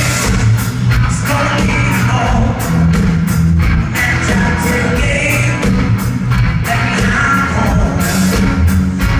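Live country-rock band playing through a concert PA, heard from the audience: a steady drum beat, electric guitars and bass under a male lead vocal.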